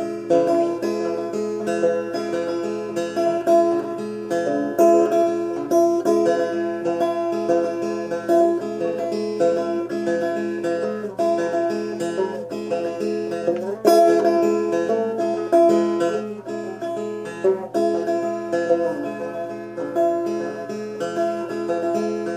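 Antique banjo fingerpicked, playing a simple tune of plucked notes throughout. Its four rusted strings are tuned down to roughly E, B, E, G sharp, an open E chord.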